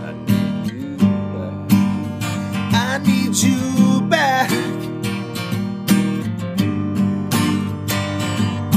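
Acoustic guitar strummed in a steady beat, a strong strum about every two-thirds of a second, playing an instrumental passage between sung lines of a folk-country song.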